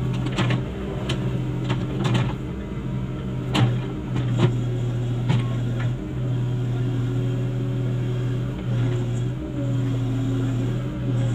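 Komatsu PC75US-3 excavator's diesel engine running steadily with a low hum, with several sharp metallic knocks and clanks at irregular moments.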